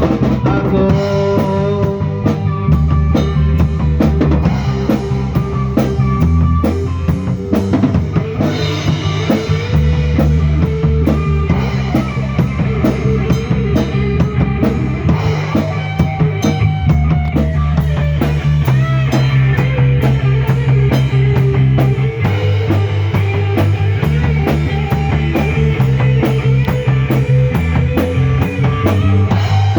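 Live rock band playing an instrumental passage with no vocals: a drum kit keeps a steady beat under a moving bass line and a melodic lead line.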